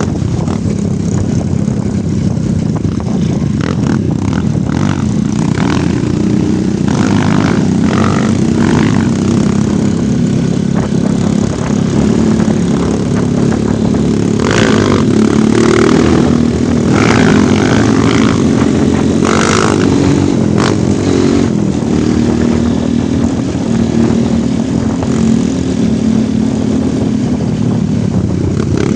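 Off-road motorcycle engine running steadily while riding, with several brief bursts of rushing noise over it.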